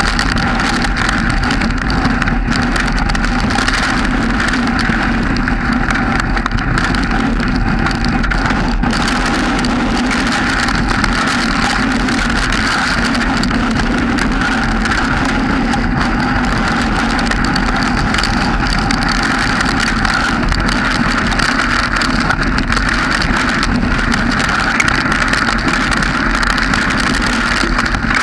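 Steady noise of a vehicle, picked up through a GoPro mounted on its outside, with wind and rain on the camera. It holds at the same level throughout, with no distinct knocks or changes.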